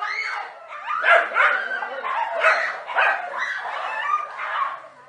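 Dogs barking repeatedly at a snake they are attacking, short sharp barks coming about twice a second.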